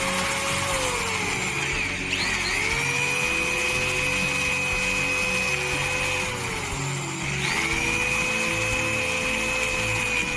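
Drill press running a carbide-tipped hole saw cutting through a metal plate: a steady whine that sinks in pitch and climbs back twice. Background music plays underneath.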